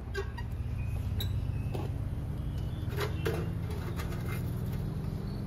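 Stainless-steel tongs clicking and scraping against an air fryer's wire-mesh basket as a tikki is picked out, about six light clicks spread across the few seconds, over a steady low hum.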